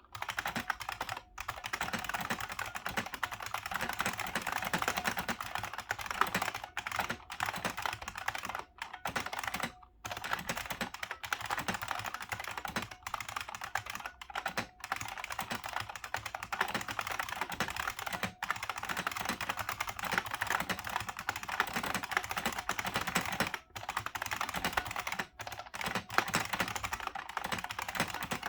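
1990 IBM Model M 1391401 keyboard with buckling-spring switches, typed on quickly and steadily: a dense stream of sharp key clicks, with a few brief pauses between bursts.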